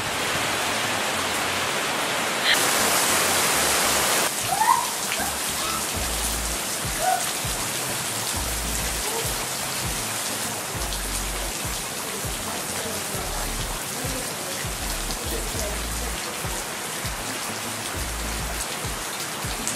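Steady rain falling on a swimming pool and the paving around it: an even hiss, louder for a second or two near the start.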